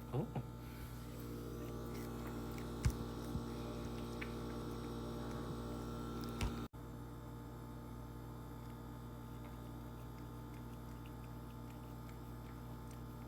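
Steady low electrical hum, with a few soft taps and clicks in the first seven seconds.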